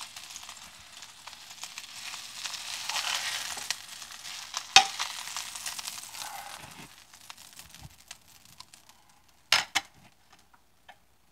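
Oil sizzling in a nonstick frying pan as egg-dredged chicken cutlets are lifted out with tongs; the sizzle dies away over the last few seconds. A sharp tap about halfway through and two clicks near the end.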